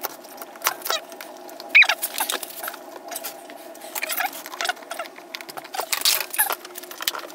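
Bar clamps being fitted and screwed tight one after another around a glued plywood fan impeller: scattered clacks, clicks and short squeaks, the loudest about two seconds in, over a faint steady hum.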